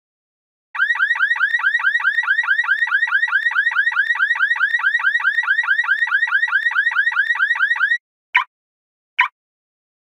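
Car alarm siren sounding, starting about a second in with a rapid run of repeating quick chirps, several a second. Near the end it switches to slow single beeps, the next tone of the alarm's cycle.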